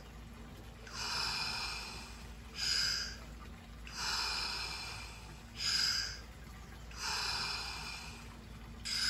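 A man's deep, rhythmic Wim Hof method breathing: a long hissing breath and a shorter, sharper one in turn, a full cycle about every three seconds, three times over.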